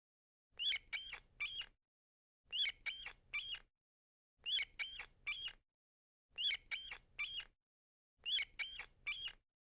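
Rat squeaking: five bursts of three short, high squeaks each, spaced about two seconds apart.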